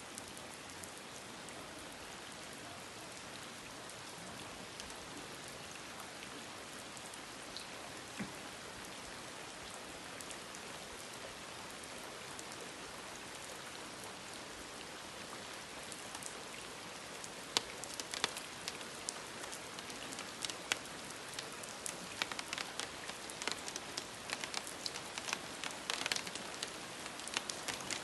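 Rain falling steadily on a wet cobbled square, an even hiss. From about halfway, many sharp, close drop hits stand out as the rain grows heavier.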